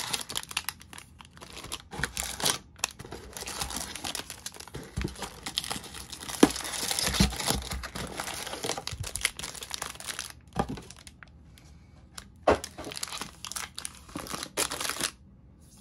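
Topps baseball card pack wrapper being torn open and crinkled by hand, with many sharp crackles. It dies away about a second before the end.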